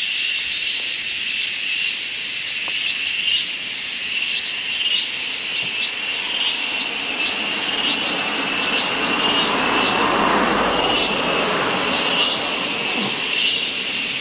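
Dense jungle insect chorus, a steady high-pitched shrill with fast pulsing. Over it, a broader low rushing sound swells and fades in the second half.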